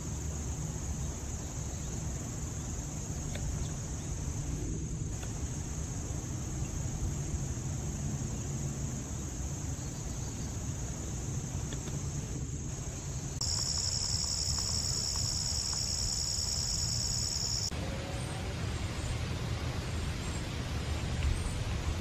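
Steady high-pitched trilling of crickets in a late-summer insect chorus. About fourteen seconds in, a louder, slightly lower trill joins and stops suddenly some four seconds later, over a low steady rumble.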